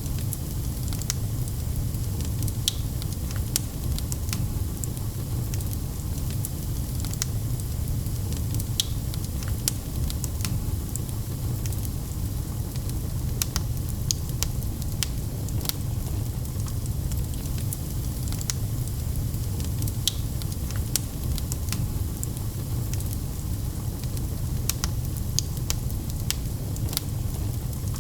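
Wood fire crackling in a fireplace: scattered sharp pops and snaps, several every few seconds, over a steady low rumble.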